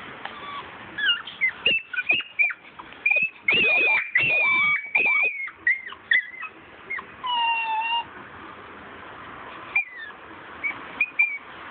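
Miniature schnauzers whining and yelping in high, bending cries, many in quick succession over the first six seconds. About seven seconds in comes one longer, steady whine, and a few short yelps follow near the end.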